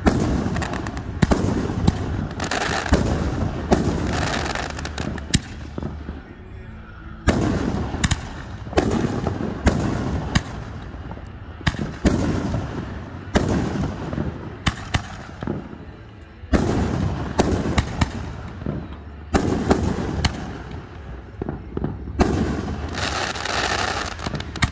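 Aerial fireworks bursting one after another: sharp bangs each followed by a rumbling echo, in rapid clusters with short lulls, and a stretch of crackling near the end.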